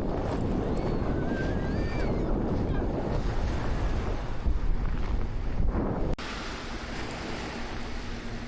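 Sea waves washing on the beach with wind buffeting the microphone. About six seconds in the sound drops abruptly to quieter surf with a faint steady hum.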